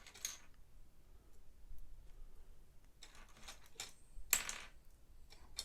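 Small plastic Lego Technic pieces being picked up and handled, giving a few short clicks and rattles. The loudest comes about four seconds in.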